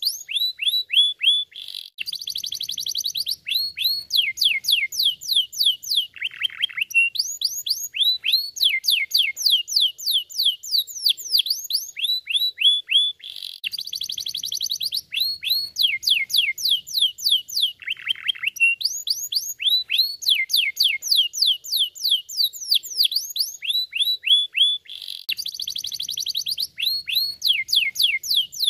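Domestic canary singing a long song of rapid falling whistled notes in quick series, broken by buzzy rolls and a lower falling phrase. The same song sequence comes round about every 11 to 12 seconds.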